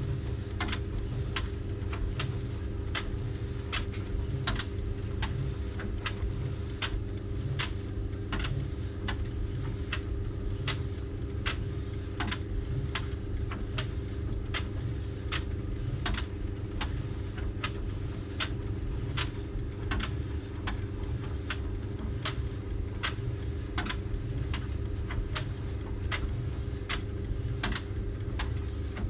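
Sharp ticks repeating a little more than once a second, not perfectly evenly, over a steady low mechanical hum.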